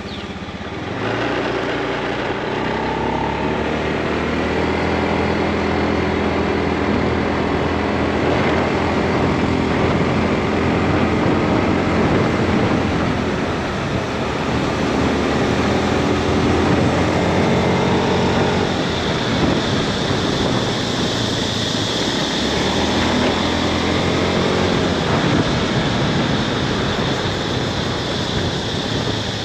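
Motorbike engine running while riding. Its pitch picks up about a second in, then rises and falls several times as the bike speeds up and slows, over a steady rush of wind and road noise.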